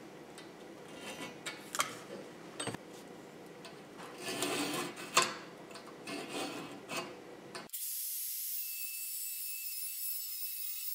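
Light scraping, rubbing and scattered clicks of tools and a steel plate being handled and marked out on a workbench. About two-thirds of the way in, a steady, thin, high hiss starts abruptly: an angle grinder cutting steel.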